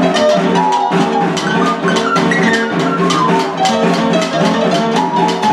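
Snare drum struck rapidly with sticks in a steady run of strokes, over an electronic keyboard backing of held chords and a melody that climbs and then falls in the first half.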